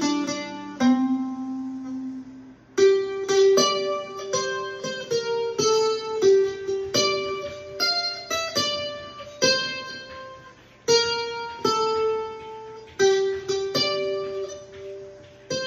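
Loar LM-310F mandolin played through a 12 Bar Blues pickup and L.R. Baggs Para EQ, picking notes and chords in a jig rhythm, each stroke ringing on before the next.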